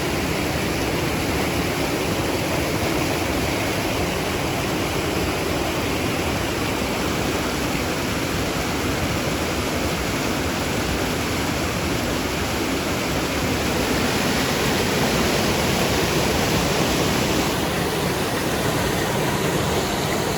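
Rushing floodwater of a flash flood, a loud, steady roar of water that swells a little about two-thirds of the way through.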